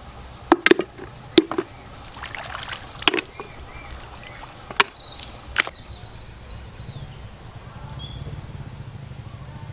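Mud clam shells knocking against each other and against an enamelled metal bucket as they are gathered: a string of sharp clacks over the first five seconds. Then a high, fast chirping for about two seconds.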